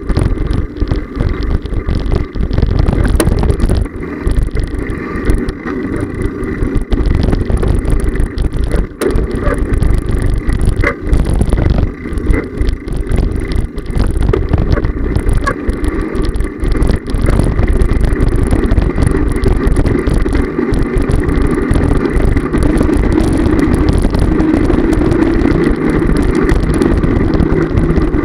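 Heavy wind buffeting on the microphone of a handlebar-mounted camera riding along a paved street, over a steady rolling rumble from the wheels.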